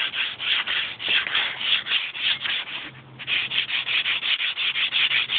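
Sandpaper rubbed by hand over the rusty top face of a 1900 Fisher anvil, quick back-and-forth strokes at about four a second, with a brief pause about three seconds in. The rust is being taken off so that it does not spoil a rebound test.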